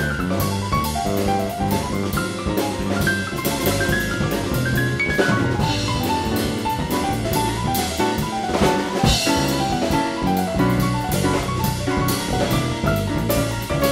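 Background music: a drum-kit beat under a melodic line of short notes.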